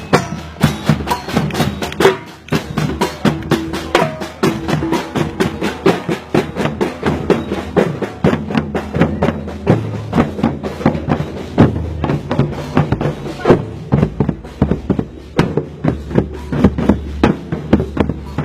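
Percussion music: drums playing a fast, steady rhythm of several strikes a second.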